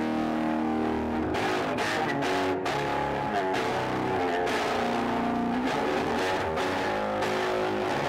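Rickenbacker electric bass strummed with several notes ringing together in a raw, overdriven tone, played like a rhythm guitar rather than as a clean, deep bass line.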